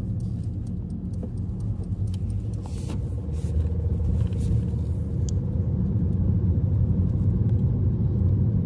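A car driving, heard from inside the cabin: a steady low rumble of engine and road noise, with a few faint ticks in the first half.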